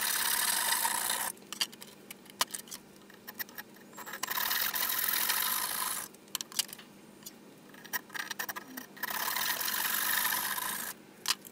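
Hand saw cutting through a 1x2 wooden board clamped in a bench vise, in three spells of sawing, with short clicks and knocks between them.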